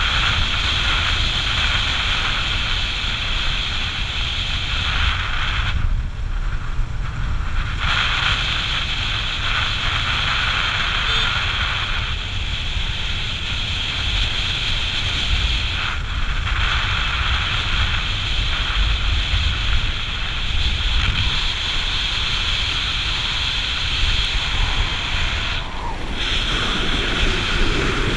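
Wind buffeting the microphone while riding a small motorcycle, over the steady running of its engine and tyres on the road. The higher part of the sound drops away briefly three times, for a second or two each.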